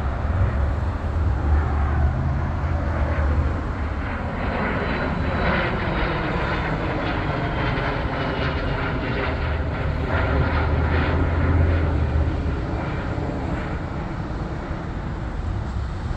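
Business jet's two rear-mounted turbofan engines passing overhead in the climb after takeoff: a steady, loud jet rumble with sweeping tones, and a thin whine falling in pitch a few seconds in.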